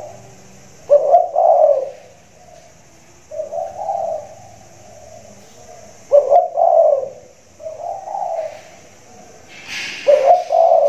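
A big-voiced spotted dove cooing its song about every four to five seconds. Each phrase is a loud two-part coo followed by a softer, drawn-out one.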